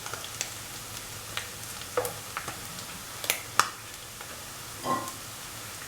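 Anchovies shallow-frying in hot oil in a pan near the end of cooking, almost brown: a steady sizzle with scattered sharp pops and taps.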